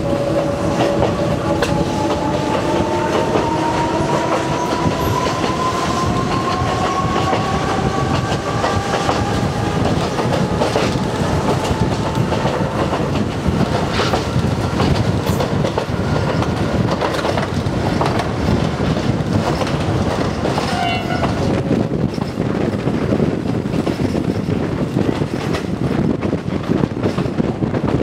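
Konan Railway Owani Line electric train running, heard from inside the car at an open window: a whine that rises slowly in pitch over the first ten seconds or so as the train picks up speed, over the steady rumble of the wheels, with scattered clicks over the rail joints later on.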